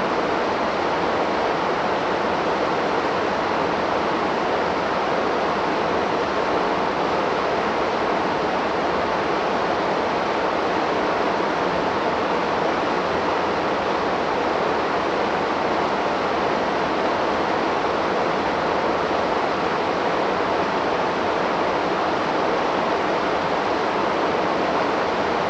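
Waterfall on a river pouring steadily: a constant, even rush of falling water with no change.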